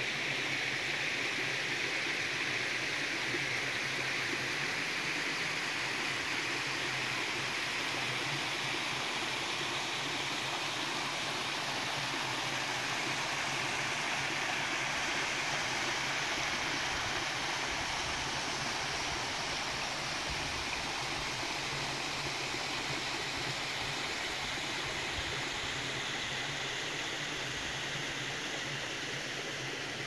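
Small waterfall of spring water cascading down a sandstone bluff into a pool: a steady, even rush of falling water that grows slightly fainter near the end.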